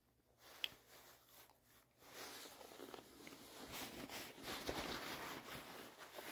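Faint chewing of a mouthful of food, then, from about two seconds in, a few seconds of soft rustling and crinkling that grows louder: a paper napkin being handled and wiped across the face.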